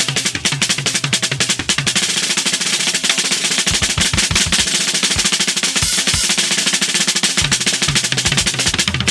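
Rock drum kit playing on its own once the band drops out: fast snare rolls and fills over a wash of cymbals, with bass drum kicks coming in at times.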